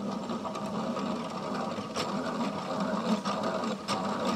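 Honey extractor spinning cut, uncapped honeycomb frames, a steady mechanical whirring with light clicks and rattles. The spin flings honey out of the comb against the drum wall.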